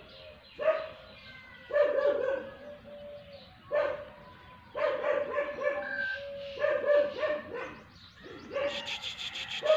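A dog giving a run of about six drawn-out, yelping barks, some short and some held for nearly a second, with brief pauses between.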